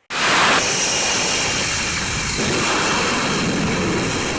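Jet engine noise: a loud, steady rushing sound that starts abruptly and holds level.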